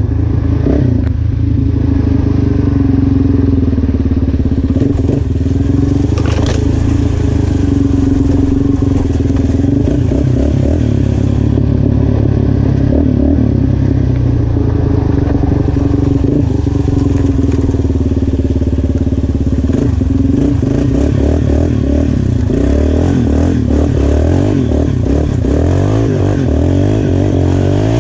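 Yamaha Raptor 350 ATV's single-cylinder four-stroke engine running as it is ridden, its pitch rising and falling with the throttle, on a freshly rejetted and cleaned carburettor.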